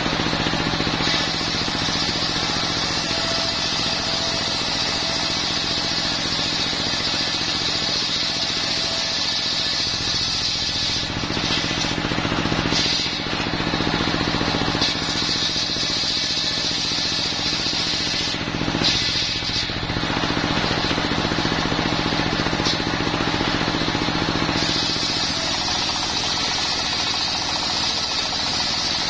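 Homemade table circular saw ripping a coconut-wood plank lengthwise, its blade driven by a single-cylinder diesel engine that runs steadily throughout. The high cutting noise of the blade in the wood breaks off briefly twice, near the middle, while the engine keeps running.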